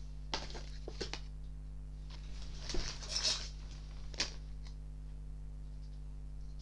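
Soft rustling and a few light clicks as shopping items are rummaged through, with the rustling strongest in the middle, over a steady low hum.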